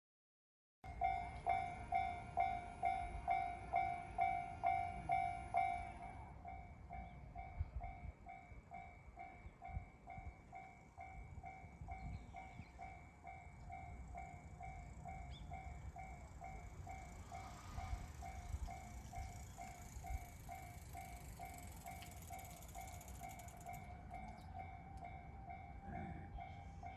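Japanese railway level-crossing warning bell ringing steadily at about two strikes a second, loud at first and quieter after about six seconds. Under it runs the rumble of a train, with a hiss of running noise that builds in the second half and cuts off suddenly near the end.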